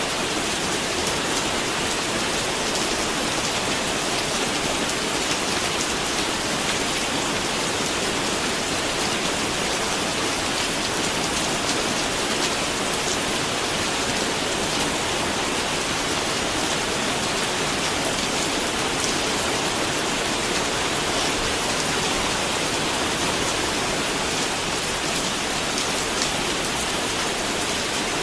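Steady, even rain falling, with fine drop ticks throughout.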